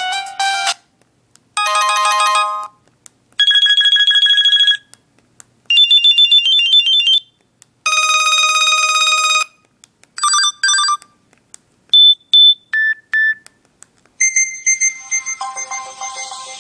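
LG Voyager cell phone playing its preloaded ringtones one after another: about six short electronic tone and chime clips, each around a second long with short silent gaps between, then a longer melodic ringtone that starts near the end.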